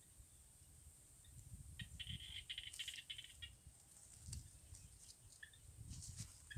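Quiet outdoor ambience with a low rumble. About two seconds in comes a faint, rapid chattering trill that lasts a second and a half, followed by a few scattered faint ticks.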